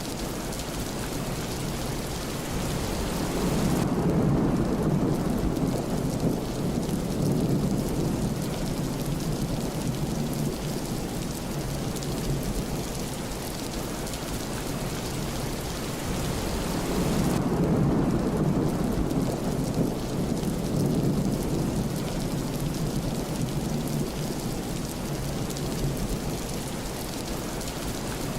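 Steady rain with two long, low rolls of thunder, one a few seconds in and another just past the middle.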